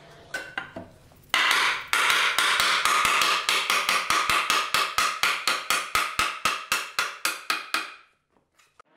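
A few separate taps, then from about a second in a fast, even run of hammer taps, about five a second, driving a dovetail joint together. The tapping stops suddenly near the end.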